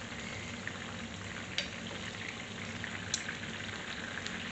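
Chicken and whole tomatoes frying in oil in a karahi, a steady sizzle, with two sharp clicks of a utensil on the pan about one and a half and three seconds in as the tomato skins are picked out.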